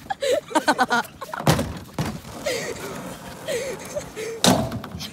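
A canoe riding on a wheeled garden cart rumbles over asphalt, with a heavy thud about a second and a half in and a louder thud near the end as it runs into the roadside guardrail and tips up.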